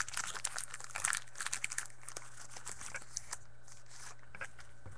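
Foil wrapper of a 2013 Topps Prime Football card pack crinkling as it is torn open and peeled back. The crackling is busiest in the first two seconds, then thins to a few faint crinkles.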